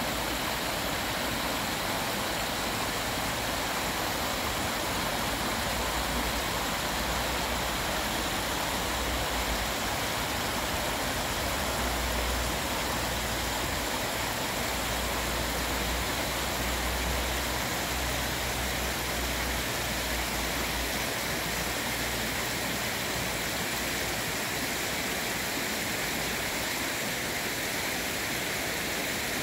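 Shallow stream rushing over a rocky riffle and around stepping stones: a steady hiss of rippling water.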